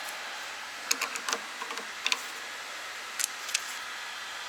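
Scattered light clicks and taps of hand tools on the suspension parts, about six in a few seconds, as a stabilizer link nut is worked on.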